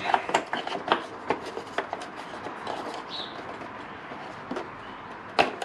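Small screwdriver prying at a stuck plastic push pin in a motorcycle's plastic tail section: light, irregular clicks and scrapes of tool tip on plastic, with two sharper clicks near the end.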